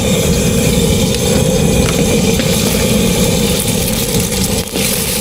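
Steady low mechanical rumble, with a brief dip about four and a half seconds in.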